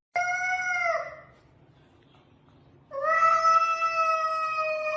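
A cat meowing: a short call of about a second, then after a pause a long, steady, drawn-out call lasting several seconds.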